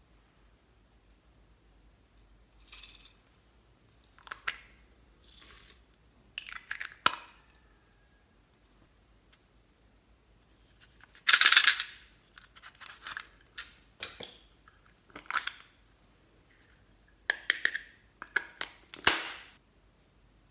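Small beads, sequins and glitter shaken out of plastic toy containers onto slime: a string of short rattles and plastic clicks with silence between them, the loudest a little after the middle.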